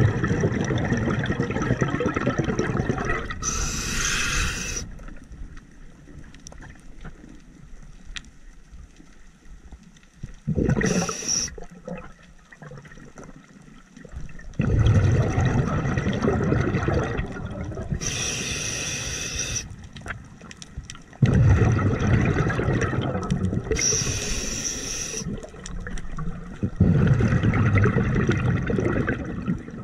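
Scuba diver breathing through a regulator underwater: short hissing inhales about every six or seven seconds, each followed by several seconds of loud, rumbling exhaled bubbles.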